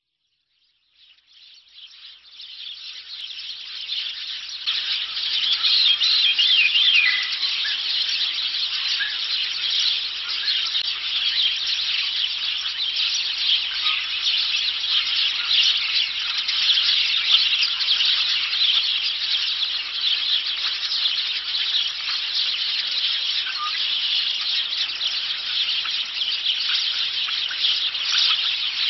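A dense, steady chorus of high chirping from many small birds, fading in over the first few seconds and then holding, with a few single chirps standing out.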